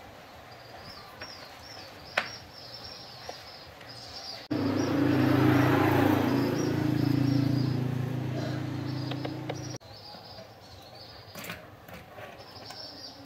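Small birds chirping in the background. About four and a half seconds in, a loud steady mechanical hum with a hiss cuts in, then stops abruptly about five seconds later.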